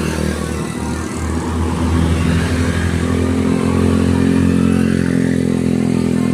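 A bus engine running and revving as it passes, getting louder about two seconds in, with a rising whine in the middle.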